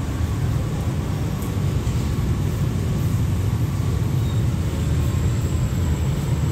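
Steady low rumble of distant vehicle noise, even in level with no distinct events.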